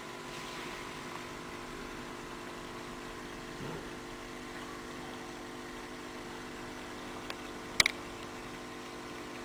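Steady mechanical hum made of several low steady tones, with a faint click about seven seconds in and a sharp, louder click just after.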